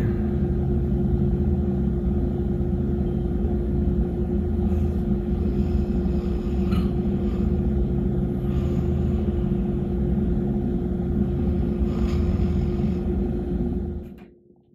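Steady low rumble with a constant hum running under it, fading out near the end.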